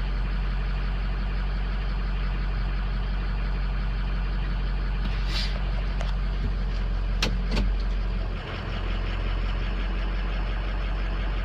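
Ford 6.0L Power Stroke V8 turbo diesel idling steadily at about 675 rpm during an injector balance test, with a few brief clicks around the middle.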